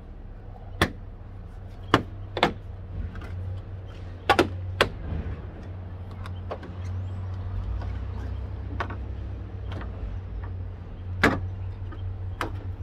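Plastic retaining clips snapping loose as a car's plastic engine-bay cover panel is pulled off: scattered sharp clicks, three close together about four seconds in and two more near the end, over a low steady rumble.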